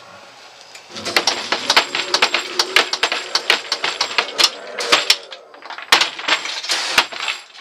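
Pneumatic monster-in-the-box prop firing: a 10-inch air cylinder at 50 PSI jerks the plywood lid so it bangs and rattles against the box in rapid, irregular knocks. The clatter starts about a second in and stops shortly before the end.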